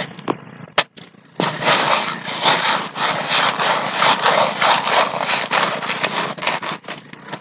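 Steel shovel blade scraping and grinding into gritty beach mud as a clam hole is dug out, a dense run of rapid scraping strokes starting about a second and a half in, after a few sharp clicks.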